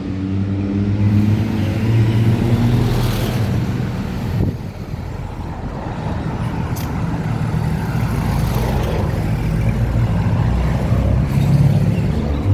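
Motor vehicles passing close by on a road, their engines humming with slowly shifting pitch; the engine sound eases after the first few seconds and builds again near the end.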